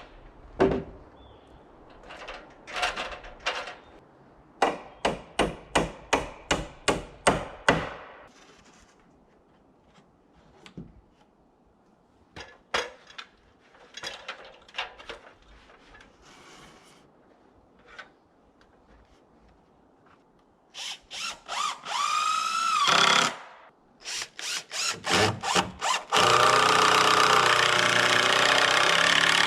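Hammer blows at about four a second, then scattered knocks, then a cordless drill spinning up with a rising whine, a few short bursts, and a steady run near the end.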